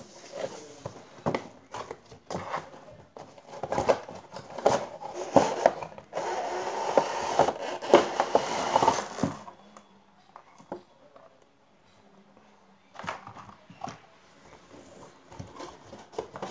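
Cardboard toy box being opened and handled: rustling and knocks of the flaps, then about three seconds of steady scraping in the middle as the cardboard inner tray slides out of its sleeve. A short quiet spell follows, then a few more handling knocks near the end.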